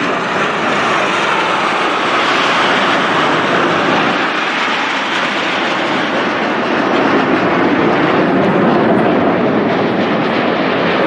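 Frecce Tricolori Aermacchi MB-339 jet trainers flying past in formation: loud, steady jet engine noise that deepens and grows a little louder in the second half.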